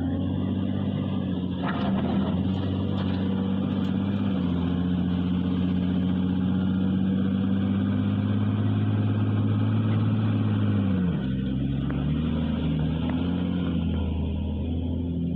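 Diesel engine of an earthmoving machine such as a backhoe loader running steadily, its revs dropping about eleven seconds in and then rising and falling.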